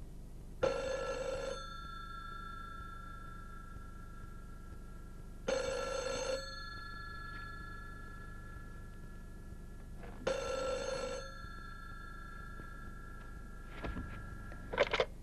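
Rotary-dial desk telephone's bell ringing three times, each ring about a second long and about five seconds apart. Near the end come a few short knocks and clatter as the handset is lifted.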